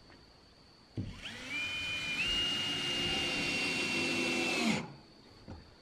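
Cordless drill driving a screw down through an OSB subfloor panel. The motor whines steadily for almost four seconds, its pitch stepping up a little partway through, then winds down and stops.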